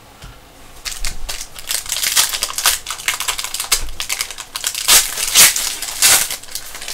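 Foil wrapper of a Panini Prizm basketball card pack being torn open and crinkled by hand. A dense run of crackling starts about a second in, with the loudest crinkles near the end.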